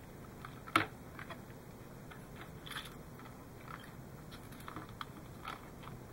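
Faint crackling and small clicks of fingers handling bundles of thin insulated wire inside a plastic model hull, with one sharper click a little under a second in.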